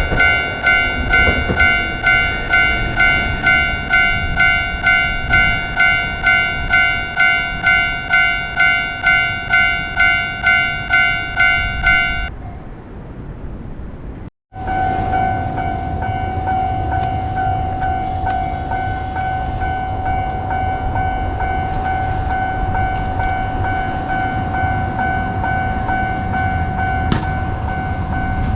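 Japanese railroad crossing warning bell clanging at about two strikes a second, stopping about twelve seconds in. After a brief dropout, a steady unbroken tone sounds over a low rumble.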